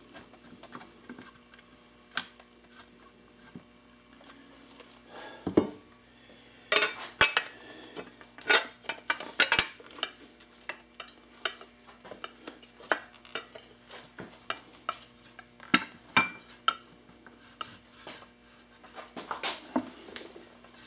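Scattered light clinks and knocks, few at first and frequent from about six seconds in, as a chrome-framed motorcycle backrest and luggage rack is handled and set down onto a Harley-Davidson V-Rod Muscle rear fender. Its mounting points are being test-fitted through three freshly drilled holes that are a little tight.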